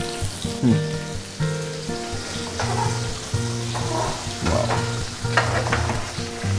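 Chicken pieces sizzling in hot oil in a large frying pan as a spatula stirs them, with a few short scrapes. Soft background music with held notes plays underneath.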